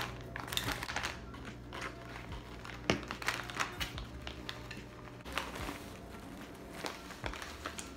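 Rustling and handling of a cotton bandana and plastic zip-top bags as food and an ice pack are wrapped on a kitchen counter, with scattered small clicks, knocks and crinkles. A low steady hum stops about five seconds in.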